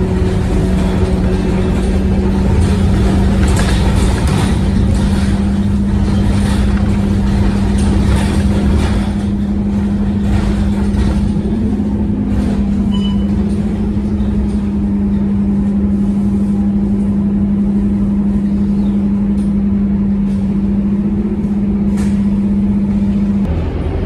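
Interior noise of a Scania K230UB city bus under way, with its five-cylinder diesel engine and low road rumble running steadily. A steady hum is heard throughout and cuts off shortly before the end. Brief rattles come now and then.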